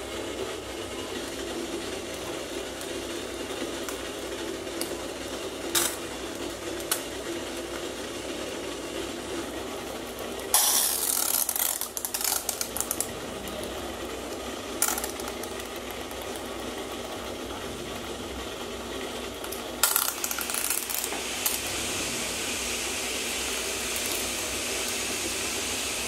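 Metal hand-held idiyappam (string hopper) press being loaded and squeezed: a few sharp clicks, then two stretches of rattling, ratchet-like creaks, about ten and twenty seconds in, as rice dough is forced through the die. A steady hiss runs underneath and grows in the second half.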